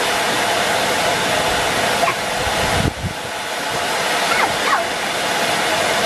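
Henry vacuum cleaner running, a steady whine of motor and rushing air, dipping briefly about three seconds in.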